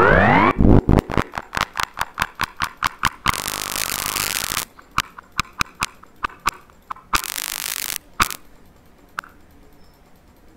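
Scratch 3.0's built-in 'space ripple' synth sound playing back in the sound editor as the Robot effect is applied to it again and again. It starts with the end of a rising electronic sweep, then breaks into a fast run of clicks and two bursts of hiss with scattered clicks between, growing sparse near the end.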